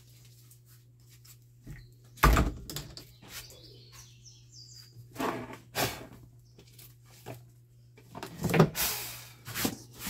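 Knocks and clatter of an oscillating fan's motor housing and plastic rear grille being handled and taken off, with a few sharp knocks, the loudest about two seconds in and more near the end.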